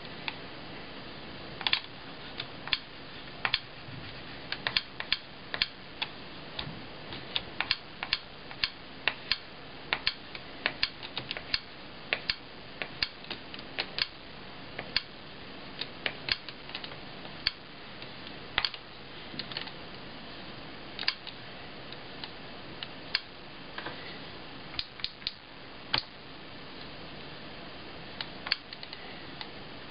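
A stylus tapping and clicking on the touchscreen of a Sharp Mobilion HC-4500 handheld PC as letters are written by hand. Many sharp, irregular clicks come thick and fast in the first half and more sparsely later, over a steady background hiss.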